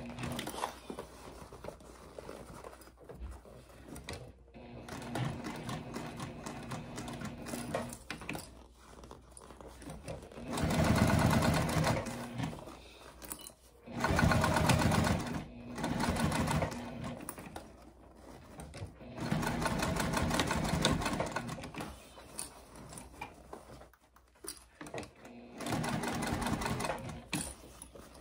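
Juki TL2010Q semi-industrial straight-stitch sewing machine stitching a seam through layered fabric. It runs in several short bursts of one to three seconds and stops between them.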